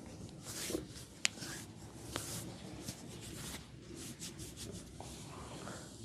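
Hands rubbing and stroking skin during a massage, a series of brushing strokes. A single sharp click comes about a second in, and a softer one about two seconds in.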